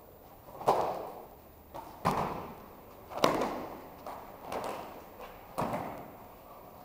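Aikido breakfalls on foam puzzle mats: a series of thuds and slaps as bodies hit the mat, about one every second or so, each trailing off briefly.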